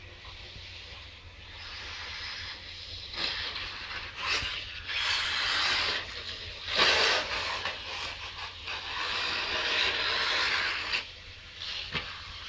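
Radio-controlled off-road car running on a dirt track, its motor and tyres rising and falling in a hissing whir as it accelerates and passes, with the loudest surge about seven seconds in.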